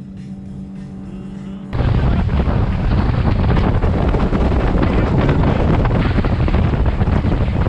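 Wind buffeting the microphone on a pontoon boat out on open water: a loud, steady rush that cuts in abruptly about two seconds in. Before that, a quieter steady hum.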